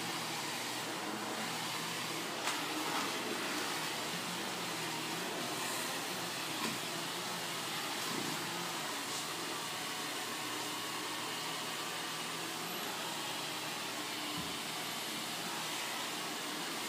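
Canister vacuum cleaner running steadily as its floor head is pushed back and forth, with a couple of light knocks in the first seven seconds.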